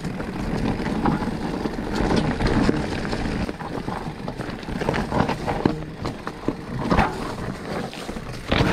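Specialized Turbo Levo electric mountain bike riding down a rocky, leaf-covered trail: tyres rolling over dry leaves and stones, with repeated knocks and rattles as the bike hits rocks.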